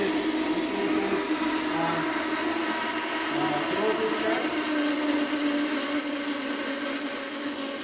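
Laboratory flume in operation: the circulating pump's steady hum over water rushing down the channel and churning through a hydraulic jump.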